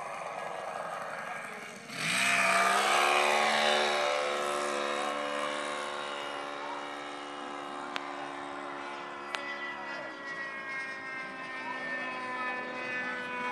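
Great Planes Viper R/C model plane's O.S. .46 glow engine on a fast low pass. It comes in loud and suddenly about two seconds in, its whine dropping in pitch as the plane goes by, then runs on as a steadier drone that changes pitch near the end.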